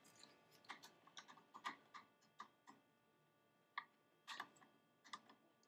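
Faint, irregular clicks and taps of a small hand tool working against the plastic grille of a Ford F-150 as a trim strip is worked loose.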